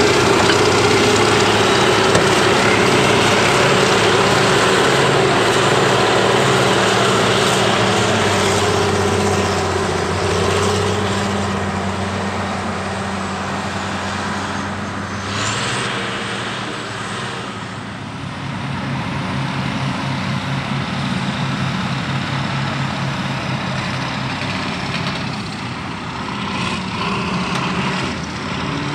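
Cat 637 twin-engine scraper's diesel engines working hard under load while loading in the cut, a loud, steady, deep engine note. About halfway through the sound changes to another heavy diesel machine, a crawler dozer, running steadily and a little quieter.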